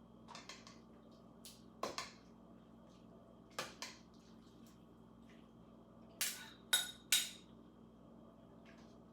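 Utensils clinking against dishes: scattered short knocks and clinks, a pair about two seconds in and another near four seconds, then three louder, ringing clinks around six to seven seconds. A steady low hum runs underneath.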